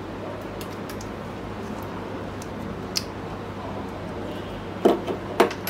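Light metallic clicks and taps from a laser printer's small pickup clutch solenoid and its spring being handled, with a sharper click about three seconds in and two louder knocks near the end, over a steady low hum.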